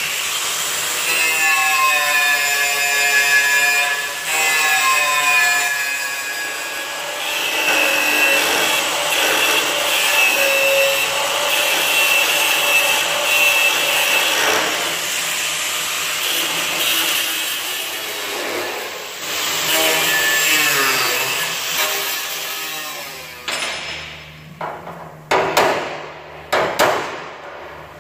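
Handheld angle grinder grinding down the steel rivets on an old truck bonnet panel, its whine sagging and rising as it bites under load. Near the end the grinder winds down and a hammer strikes a punch against the steel panel several times, knocking out the rivets.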